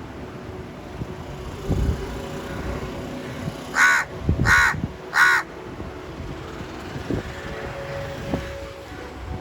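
A crow cawing three times in quick succession, about two-thirds of a second apart, over a low outdoor rumble with occasional bumps.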